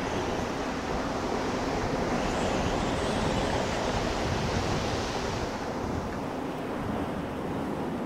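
Snowstorm wind blowing hard and steadily, swelling a couple of seconds in and easing again after about five seconds.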